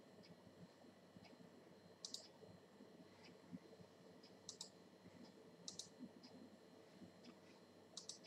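Faint computer mouse button clicks: four sharp double clicks a couple of seconds apart, with lighter single ticks between, over faint room noise.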